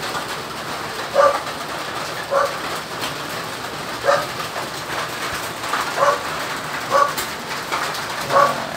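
A dog barking repeatedly, short sharp barks about once a second.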